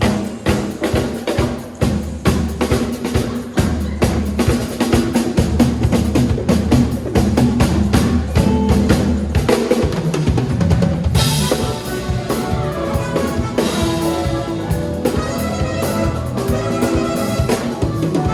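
Band music led by a drum kit playing a fast, busy groove of bass drum and snare hits. About eleven seconds in, cymbals and sustained instrument lines such as keyboard or guitar come in more strongly.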